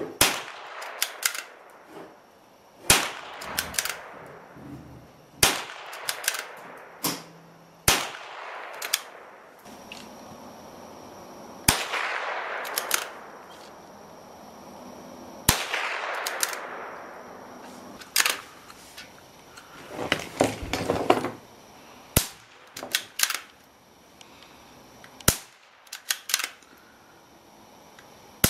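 Stevens 300F short-barrelled .22LR bolt-action rifle fired about ten times, a sharp crack every few seconds, some shots trailing off over about two seconds. Between shots, lighter clicks of the bolt being worked.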